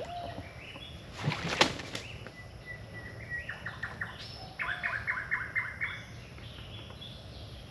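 Australian pelican flapping its wings on the water, a short cluster of whooshing wingbeats about a second and a half in. After that a bird calls with quick runs of repeated high notes.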